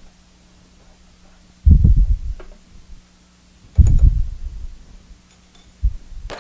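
Two heavy low knocks about two seconds apart as a drill bit is changed and tightened in a milling machine's drill chuck, with small clicks between, over a steady electrical hum. A sharp click comes at the very end.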